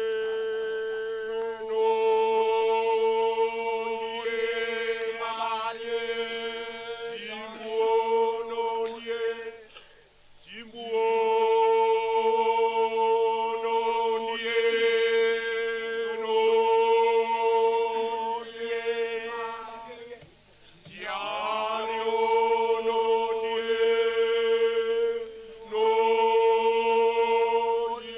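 Voices chanting together on a long held note, a traditional Eastern Highlands song of Papua New Guinea. The note breaks off twice, about ten and twenty seconds in, and each time the voices slide back up into it.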